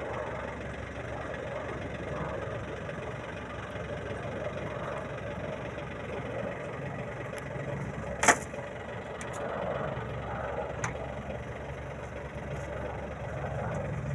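Distant helicopter's steady engine and rotor drone, growing a little stronger near the end as it approaches. A single sharp click about eight seconds in.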